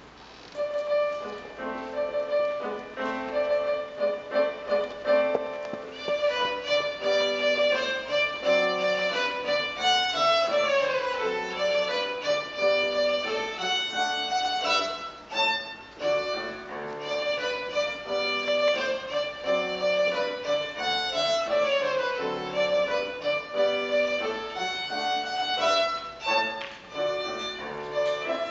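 A child plays the violin with piano accompaniment, beginning about half a second in. Quick runs of notes sweep downward twice, once midway and once later.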